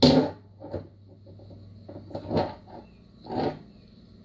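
Mercury power-trim solenoids clunking as 12 volts is put to their input side: one loud clunk right at the start, then several softer knocks over a faint low hum.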